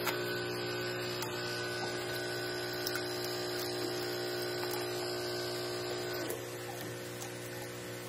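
Brasilia Mini Classic espresso machine's pump humming steadily while espresso shots brew. Some of the higher tones in the hum drop out about six seconds in.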